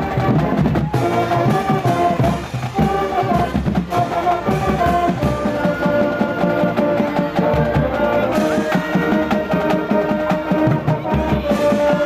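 Music with drums keeping a steady beat under held notes.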